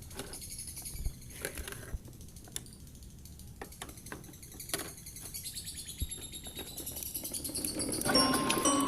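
Birds chirping in the background, with scattered light clicks and taps. Music starts about eight seconds in.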